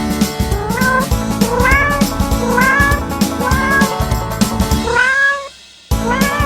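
Domestic cat meowing about five times, each meow short and rising in pitch, over background music with a steady beat. The music drops out briefly near the end, then returns.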